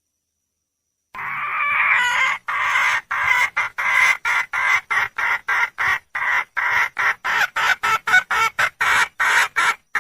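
Wild junglefowl hen calling for a male: a drawn-out call starting about a second in, then a fast run of short clucks, several a second and getting quicker, that stops abruptly at the end.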